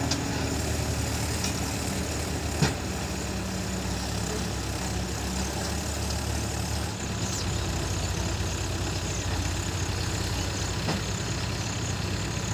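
Heavy diesel machinery engine running steadily at low revs, with a single sharp knock about two and a half seconds in; its low note shifts slightly about seven seconds in.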